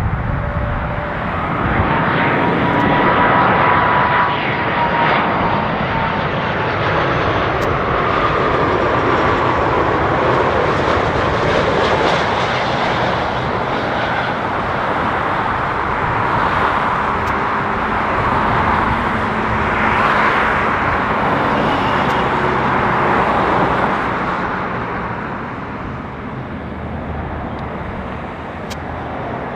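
Airbus A330-300 on final approach with its Rolls-Royce Trent 700 turbofans: a steady jet roar with a whine that sags slightly in pitch, building as it passes close and fading after about 24 s.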